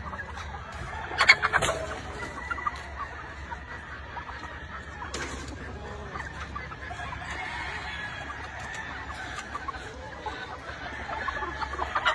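Gamefowl chickens clucking steadily, with a louder burst of calls about a second in and again near the end.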